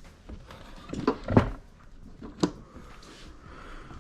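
A few sharp knocks and clunks, like a cupboard door or objects being handled: a short cluster about a second in, the loudest just after it, and one more sharp knock about two and a half seconds in.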